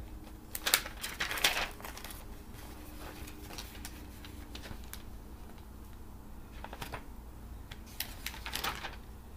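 Magazine pages being turned and handled: a few short paper rustles and crinkles, the loudest about a second in and another cluster near the end.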